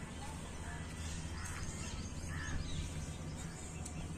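Outdoor ambience: a few short, faint bird chirps over a steady low hum.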